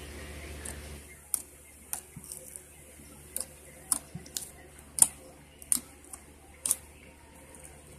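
White slime being squeezed and kneaded by hand, giving a string of sharp clicking pops as air trapped in it bursts, the loudest about five seconds in.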